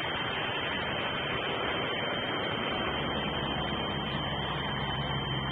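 Steady hiss of the nest camera's outdoor microphone with a constant thin high whine, and a low steady hum that comes in about halfway through. No eagle calls are heard.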